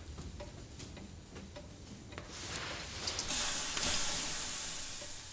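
Light ticking, then a long hissing rush that swells about two seconds in, is loudest near the four-second mark and fades out.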